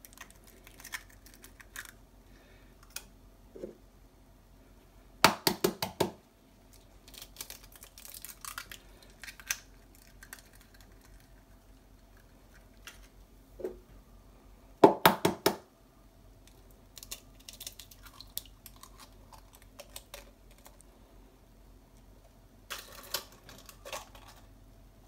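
Eggs being cracked against a stainless steel mixing bowl: a quick run of sharp taps about five seconds in, the loudest run about fifteen seconds in, and a softer one near the end, with faint shell clicks in between.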